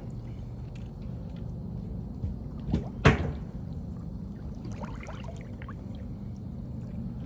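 Water lapping and splashing around people standing chest-deep, with one sharp splash about three seconds in, over a steady low hum.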